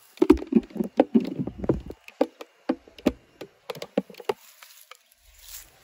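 Dry vegetation crackling and snapping: a dense run of rustling cracks for about two seconds, then scattered single snaps that die away a little past four seconds in.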